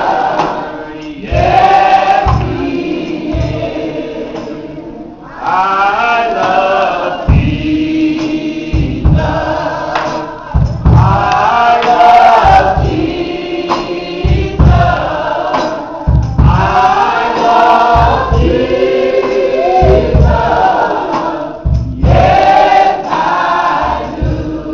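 A group of men and women singing a gospel song together in phrases, with low thumps keeping a beat underneath.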